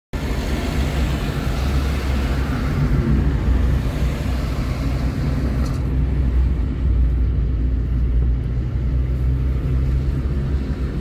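A car driving at road speed: a steady low rumble of road and engine noise with a hiss over it. The hiss thins out about halfway through.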